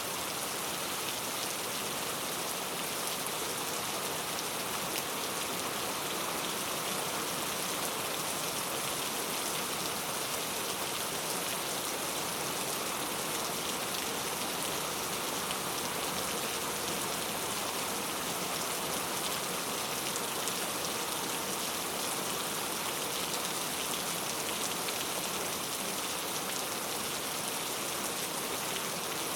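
Heavy rain falling steadily, a dense even hiss of rain on hard surfaces.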